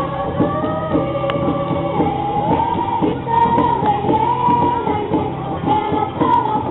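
Yospan dance music from Papua: a voice singing a melody over a quick, steady rhythm of accompaniment.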